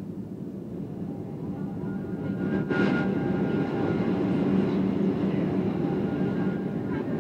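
Steady low drone of a Boeing 737-800 heard from inside the cabin on approach, engines and rushing air. It grows louder about two seconds in, with a short hiss near three seconds.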